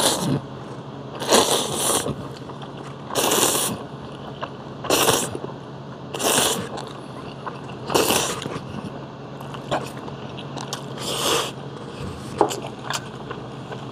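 A man slurping thin wheat noodles (somyeon) in spicy whelk salad, in about seven short, loud slurps a second and a half or so apart, then chewing with a few small clicks near the end.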